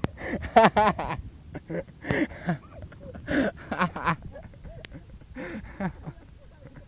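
Wordless human vocal sounds: short bursts of voice, with a quick wobbling pitch about half a second in, repeated in clusters.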